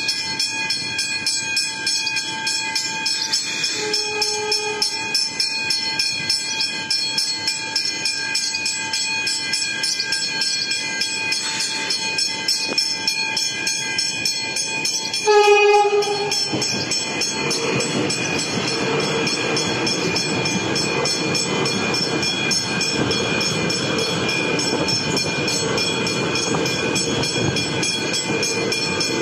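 Level-crossing warning bells ringing steadily, with a faint short horn note about four seconds in. About halfway through, a Metro suburban electric train sounds a loud horn blast of about a second, then passes over the crossing, its wheels and motors rumbling.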